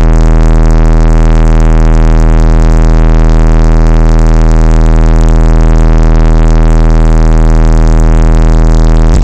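Car subwoofers playing a 40 Hz test tone through the amplifier: a steady, very loud, distorted bass drone that cuts off near the end. The tone loads the amplifier to about 30 V AC per speaker terminal so its output can be clamped.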